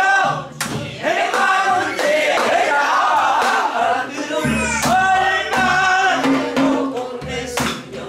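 A woman's voice leading a Korean Namdo folk song in traditional style, with other voices singing along, and buk barrel drums struck to keep the rhythmic cycle.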